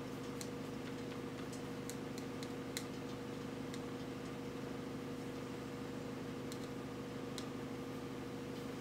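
Steady low hum of room tone, with a few faint, irregularly spaced small clicks.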